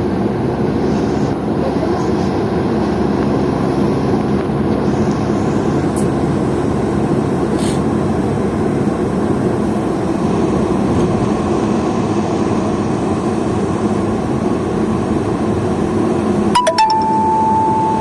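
A road vehicle driving along: a steady engine hum mixed with road noise. Near the end come a few sharp clicks and a short, steady high beep.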